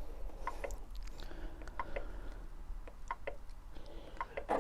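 A string of soft, irregular clicks from the sewing machine's controls as the presser foot is lowered and a decorative stitch is selected.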